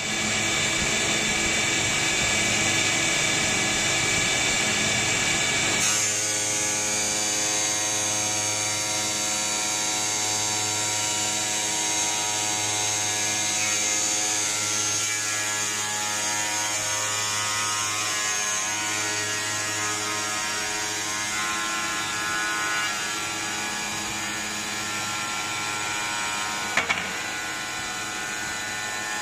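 Automatic three-blade tile cutting machine running, its electric motors driving water-cooled saw blades: a steady whine made of many steady tones over a hiss. The sound shifts about six seconds in, and two sharp clacks come near the end.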